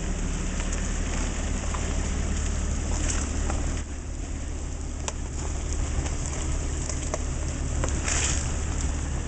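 1999 Jeep Cherokee XJ's engine running with a steady low hum, held in 4WD low for engine braking on a downhill, under a constant hiss of tyres on a sand trail with scattered clicks.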